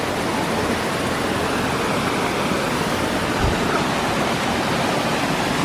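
Steady rush of a nearby stream and waterfall, with a brief low bump about halfway through.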